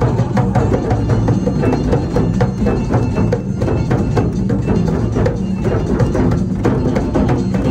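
A group drum circle of djembes and other hand drums struck with bare hands, many players together in a dense, steady rhythm.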